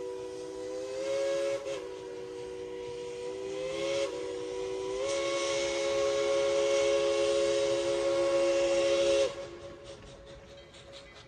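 Steam whistle of Tweetsie Railroad's narrow-gauge steam locomotive No. 190 blowing one long blast of several notes together, its pitch bending up a few times, then cutting off suddenly near the end. A faint rhythmic hiss follows and fades.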